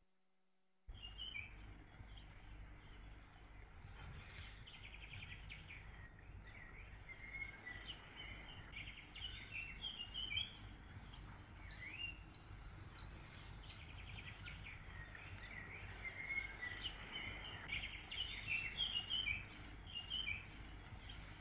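Small birds chirping and singing over a steady low rumble, beginning about a second in.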